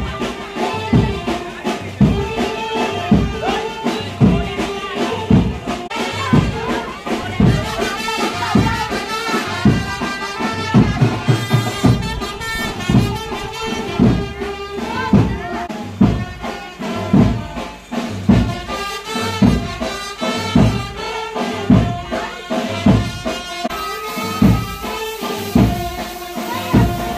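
Music with a steady drum beat under a brass melody, in the style of a brass band.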